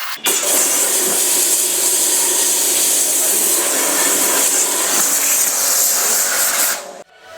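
Electric pressure washer spraying a high-pressure jet of water with its motor running: a loud, steady hiss that starts abruptly and cuts off sharply near the end.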